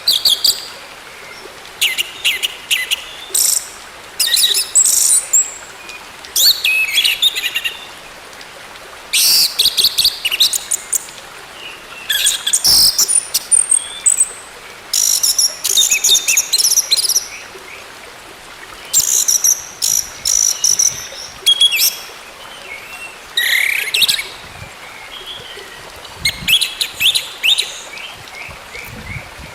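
Orange-headed thrush singing: bursts of rapid, high chirping and warbling notes, each a second or two long, with short pauses between them.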